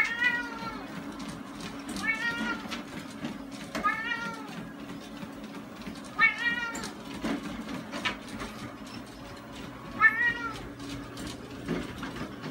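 Cat meowing five times, short calls that rise and fall in pitch, about two seconds apart with a longer gap before the last. Under them a treadmill motor hums steadily, with light clicks from the belt and paws.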